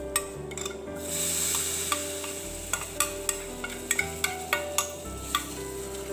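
Hot coconut-oil tempering of fenugreek, shallots and dried red chillies poured into a pan of fish curry, sizzling briefly. Then a metal spoon stirs and taps against the pans in a quick run of clinks.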